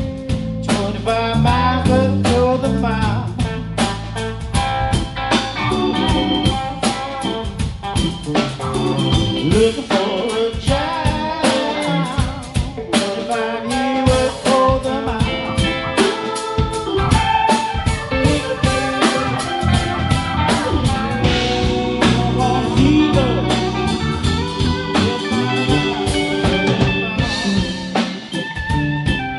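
Live band playing a song on electric guitars, bass guitar, drum kit and keyboard, with a man singing.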